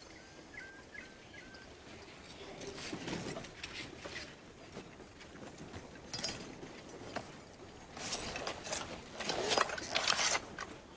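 Faint short chirps in the first second or two, then scattered scuffs and knocks of movement on sand. About eight seconds in comes a louder flurry of sharp knocks and scuffling, the loudest part.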